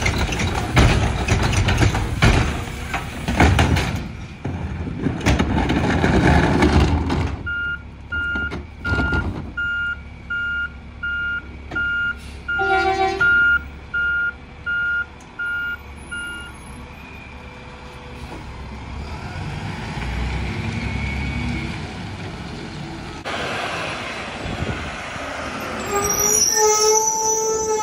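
Mack LR garbage truck with a McNeilus rear-loader body: for the first seven seconds or so the engine and hydraulics work loudly as a recycling cart is tipped into the hopper. Then the backup alarm beeps steadily, a little more than once a second, for about nine seconds. The engine then pulls the truck along, and the brakes squeal near the end.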